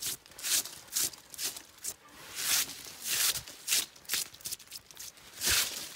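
Fallen autumn leaves being swept off a cup-marked sacrificial stone in repeated swishes, about two a second. The loudest swipe, near the end, comes with a dull thump.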